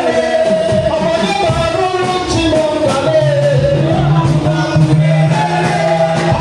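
Music with singing over instrumental accompaniment, with held bass notes coming in about halfway through.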